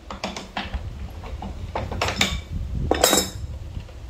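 Steel adjustable wrench clinking and clanking against the square-head bolts of an old grist mill's wooden housing while the bolts are worked loose, a series of sharp metallic clicks with a louder ringing clank about three seconds in.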